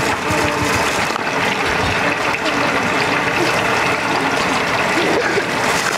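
Tofu deep-frying in a large wok of hot oil over a gas jet burner: a steady sizzle and hiss.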